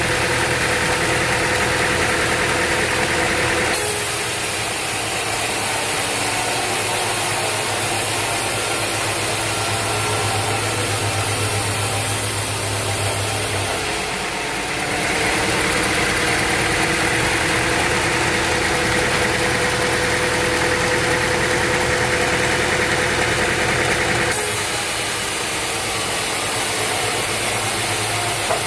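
Sawmill machinery running steadily with an engine-like hum. The tone and pitch change abruptly about four, fourteen and twenty-four seconds in.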